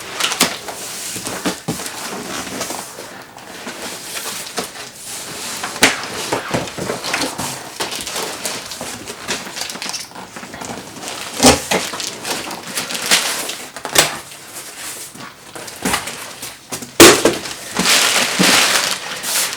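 Large cardboard shipping box being opened and its packing handled: rustling, scraping and crinkling with several sharp knocks, the loudest about seventeen seconds in.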